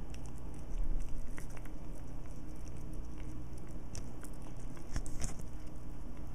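A cat chewing and biting at a cooked pork chop on a plate: irregular small wet clicks and smacks, a little louder about a second in and again about five seconds in, over a steady low hum.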